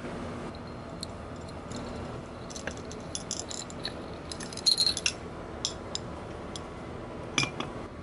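Light metal chains and small S-biner clips clinking and clicking as the clips are hooked onto teacup handles: a scatter of small clinks, busiest about halfway through.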